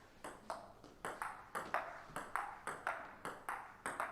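Table tennis rally: the celluloid/plastic ball clicking sharply off the rackets and the table in a quick, even rhythm of about three hits a second.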